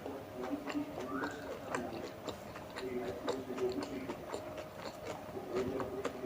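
Mouth chewing tandoori momos, with many small irregular wet clicks and smacks.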